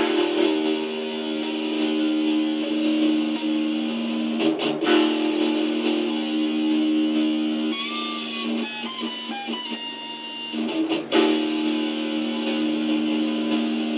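Electric guitar playing thrash-metal riffs: held heavy chords struck anew about five seconds in and again about eleven seconds in, with a higher single-note lick in between.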